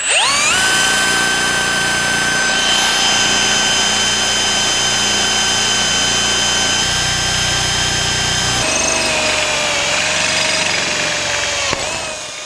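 Cordless drill spinning up and running steadily as a freshly resharpened twist drill bit bores into a rusty steel bar held in a vise. The motor's whine shifts lower about nine seconds in and eases off near the end. The bit cuts a proper hole.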